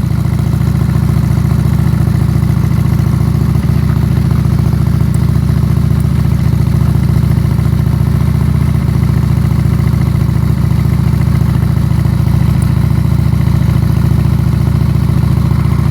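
2006 Honda Shadow's V-twin engine running steadily at an even pitch, picked up through a phone on a selfie stick tie-wrapped to the handlebar struts.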